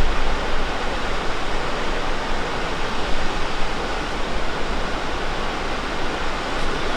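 Waterfall with water rushing in a steady, even roar.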